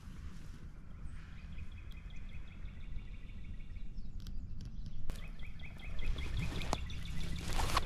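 A small songbird's rapid trill, a long run of even, quick notes, heard twice over a low wind rumble; in the last couple of seconds a rustling in the grass grows louder.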